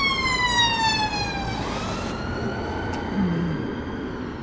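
An emergency-vehicle siren wails in the background. Its pitch falls slowly, then rises slowly again from about a second and a half in.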